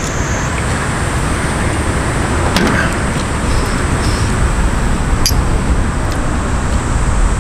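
Steady outdoor traffic noise with a deep, continuous rumble, and a few light clicks over it.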